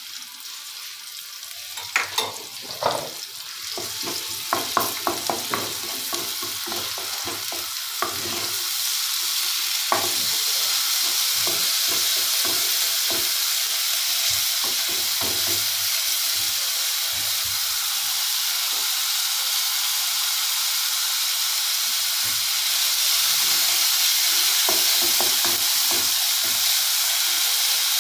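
Ginger-garlic paste and chopped green chillies sizzling in hot oil in a non-stick pot, stirred with a wooden spoon. The spoon knocks and scrapes against the pot over the first several seconds, then a steady sizzle builds up and grows louder near the end.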